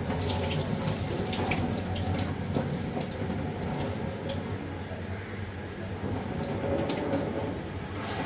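Water running from a kitchen tap into a stainless-steel pot and being poured off into the sink as rice and green moong dal are rinsed, with a few light knocks of the pot.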